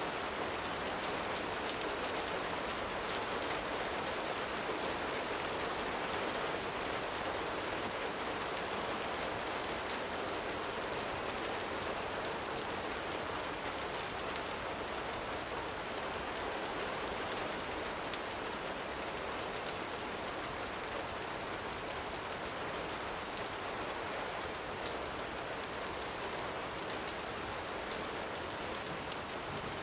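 Steady gentle rain falling, with faint scattered ticks.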